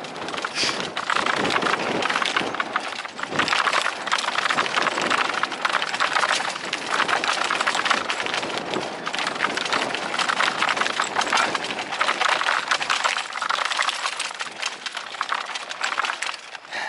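Electric mountain bike clattering down a dirt singletrack: tyres crunching over dirt and roots with a dense, continuous rattle from the bike. It eases off just before the end.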